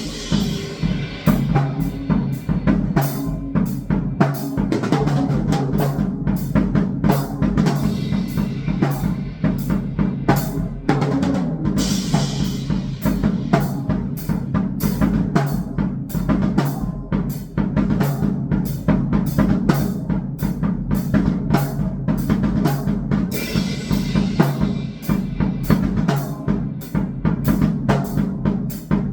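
Drum kit played in dense, fast patterns of kick, snare and rim hits over a steady low electronic noise drone. A brighter crash-like wash rises at the start, again about twelve seconds in, and near 24 seconds.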